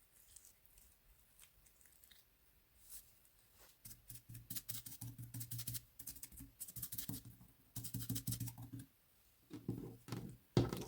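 Clay slime being squeezed and pressed by hand, giving runs of sticky crackling clicks and squelches. Faint ticks at first, dense crackling from about four seconds in with a short break, then a louder squelch near the end.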